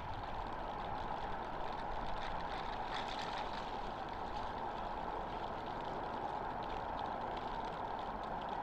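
Airliner jet engines running, heard as a steady rushing noise.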